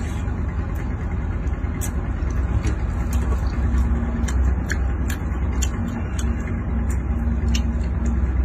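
Steady low rumble of an idling engine, with scattered sharp clicks over it.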